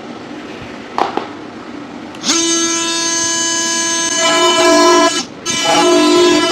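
A single knock about a second in, then background music starting just after two seconds: held, ringing pitched tones that shift notes, with a brief break near the end.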